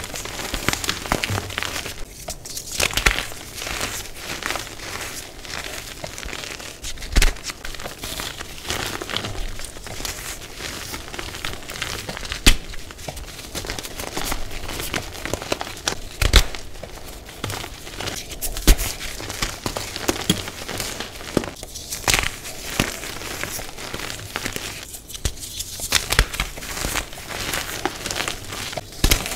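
Hands crushing and crumbling blocks of dyed gym chalk into powder: a continuous dry crunching and crumbling, with several sharp cracks as chunks snap apart.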